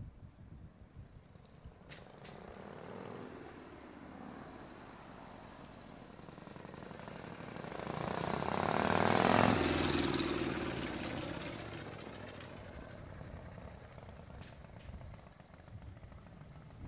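Harley-Davidson Shovelhead V-twin motorcycle riding past, growing louder as it approaches, loudest about halfway through, then fading as it moves away.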